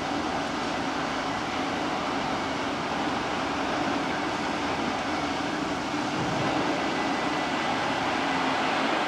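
Two coupled electric locomotives moving through a railyard: a steady running rumble with a faint, even hum.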